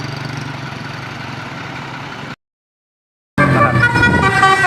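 A bus engine running steadily, then a second of dead silence, then a loud 'telolet basuri' multi-tone bus horn playing a quick tune of changing notes.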